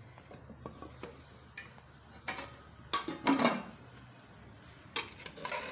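Aluminium pressure cooker lid being worked open and lifted off: a few metal clicks and scrapes, loudest about three seconds in, with another sharp click near the end, over a faint steady hiss.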